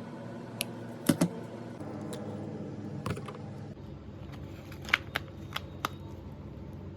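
Takeout food containers being handled: scattered sharp clicks and taps, a loud pair about a second in and four more around the five-second mark, over a steady low hum.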